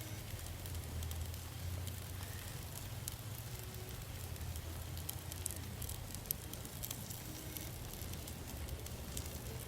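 Sauced chicken wings sizzling over hot charcoal in a Weber kettle grill, with scattered sharp crackles and pops and a steady low hum underneath.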